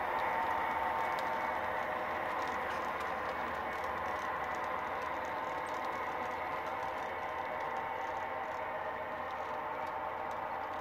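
Model railroad passenger train rolling past, its streamlined cars clattering and rattling along the track over a steady hum that eases slightly as the train moves on.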